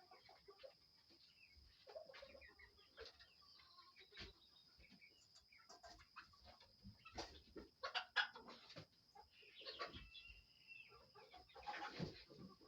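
Chickens clucking quietly, with scattered short calls and clicks that grow busier in the second half, over a faint steady high-pitched tone.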